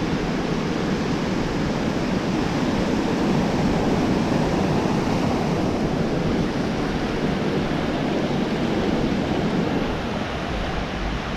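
Ocean surf washing onto the beach, a steady wash of noise that swells a little midway, with wind buffeting the microphone.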